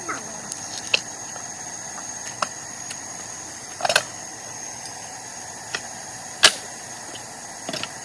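Pallet boards being pried off with a pallet breaker: scattered sharp knocks and clacks of wood and metal, the loudest about six and a half seconds in, with a falling creak at the start as the nails pull out of the wood.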